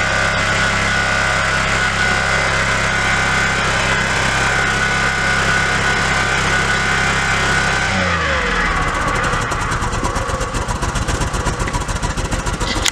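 Chevrolet Impala engine held at high revs with a steady whine, dropping at about eight seconds and settling into a rough, uneven idle. The owner says the head gasket is blown.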